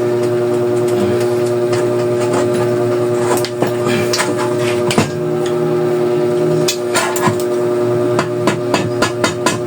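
Hammer blows tapping a tight-fitting part into a bicycle frame, irregular knocks that come quicker in the last few seconds. A steady hum runs underneath.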